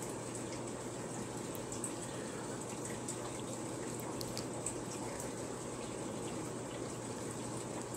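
Aquarium water bubbling and trickling steadily in a fish room, over a faint low hum, with a few small high ticks like drips or bursting bubbles.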